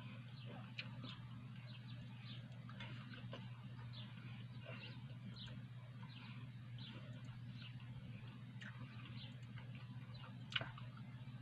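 Faint chewing of a mouthful of shawarma, with wet mouth sounds about twice a second over a low steady hum and one sharp click near the end.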